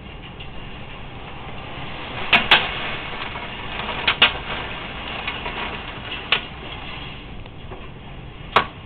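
Steady rushing storm noise of wind and rain during a tornado, broken by six sharp knocks or bangs: two pairs in the first half, then two single ones later.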